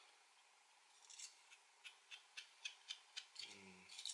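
Faint, crisp clicks and scrapes of a small pocket-knife blade from a cheap multi-tool, about three or four a second, starting about a second in. A brief low hum from the man comes near the end.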